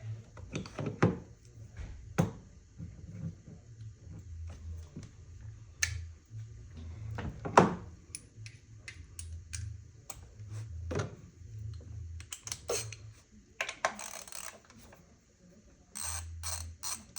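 Hand tools working on engine parts: scattered metal clicks and knocks, then near the end a ratchet wrench clicking rapidly as a 10 mm bolt is turned.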